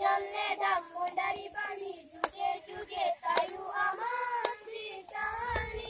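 A group of schoolchildren singing a song together, with a sharp hand clap about once a second keeping time from about two seconds in.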